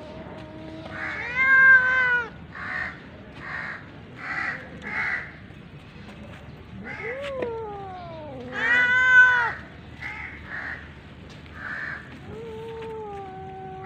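A feral cat meowing repeatedly: two long, loud meows, about a second in and about eight and a half seconds in, with a string of shorter, softer meows between and after them.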